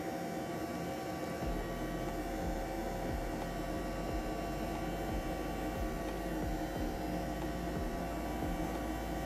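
Small DC motor spinning a fan at steady speed, a continuous hum, as in a homemade vacuum cleaner. A deeper hum joins about a second and a half in.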